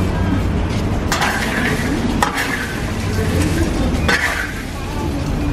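A metal spatula scraping and shovelling chestnuts through hot quartz sand in a large iron wok as they are stir-roasted by hand. It makes a rasping sweep every second or two, with a sharp click a little after two seconds in, over a steady low hum.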